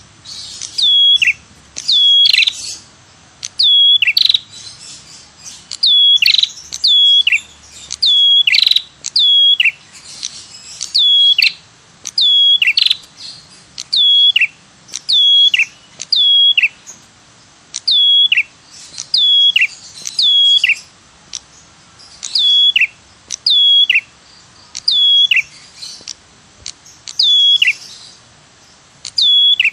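Ashy tailorbird (prenjak kepala merah) calls played as a bird-lure recording: loud, sharp 'tirr' notes, each a quick call that drops in pitch, repeated about once a second in an even rhythm, often in close pairs.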